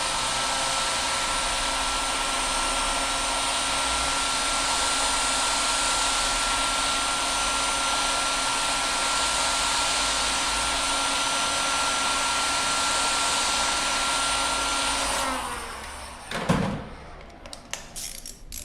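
Electric heat gun blowing steadily with a motor whine, heating a threadlocked rim screw to soften the thread-locker. It switches off about fifteen seconds in, followed by a few light metallic clicks and clinks.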